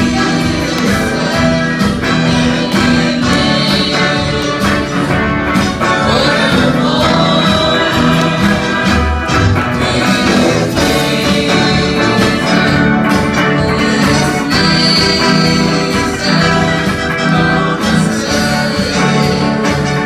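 Praise-and-worship song: a band playing with singing.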